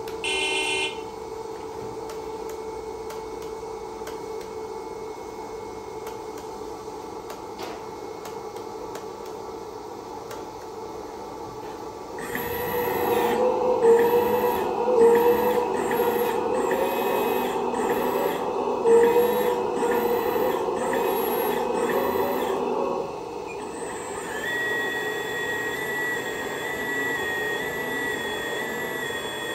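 LESU Carter374 RC hydraulic excavator: a horn toot from its sound module at the very start, then a steady mechanical whir of its hydraulic pump as the boom, arm and bucket move. The whir grows louder with a regular pulsing about halfway through, eases off near the end and gives way to steady tones.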